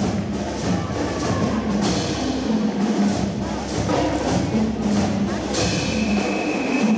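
Marching band playing: drum and percussion strikes over sustained low brass chords, with a high held note coming in near the end.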